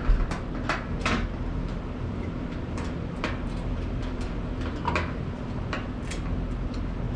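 Screws being driven down with a Phillips screwdriver to fix a handle and heat shield on a sheet-metal charcoal pizza oven: scattered small metallic clicks and taps over a steady low hum.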